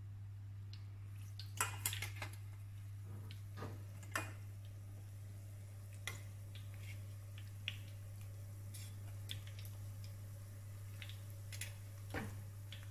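Metal tongs and a whisk clinking against a stainless steel batter bowl and frying pan, a scattering of separate sharp clinks, the loudest a cluster about two seconds in, over a steady low hum.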